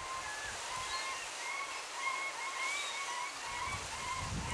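Steady rush of whitewater from a creek's falls, with a run of short, repeated bird calls over it.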